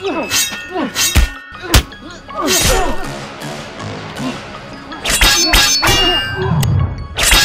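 Several sharp punch and kick impact sound effects over background music.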